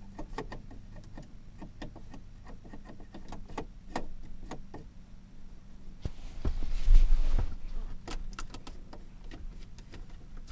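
Scattered light clicks and taps, with a louder rustling bump about six to seven seconds in.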